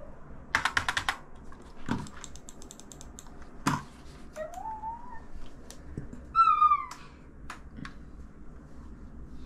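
Computer keyboard keys clicked in quick runs, about ten rapid clicks near the start and a few more scattered presses. Two short high-pitched calls, one rising and a louder one falling a couple of seconds later.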